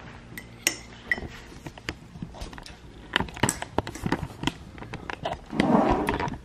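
Teaspoon clinking against a ceramic mug while stirring tea: a string of light irregular clicks, with a brief louder noise near the end.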